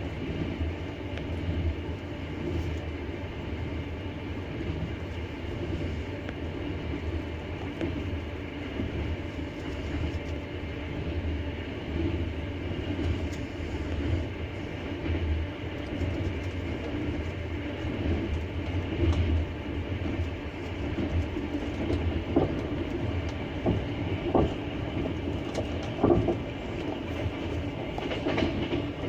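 Wheels of a double-deck passenger train running along the track: a steady rumble with the clack of wheels over rail joints, and a few sharper knocks in the second half.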